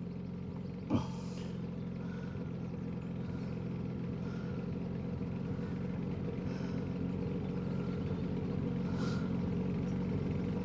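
Johnson 9.9 hp outboard motor running steadily with the boat under way at cruising speed, slowly getting a little louder. A single short knock sounds about a second in.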